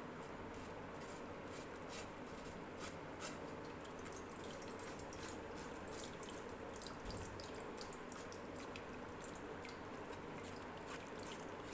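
A metal spoon stirring and pressing thick blended jamun pulp through a stainless-steel mesh strainer: wet squishing with small, irregular scraping clicks against the mesh, and juice dripping into the bowl below.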